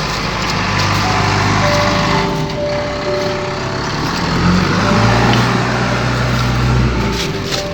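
An engine running steadily, its note rising about four and a half seconds in and dropping back near the end.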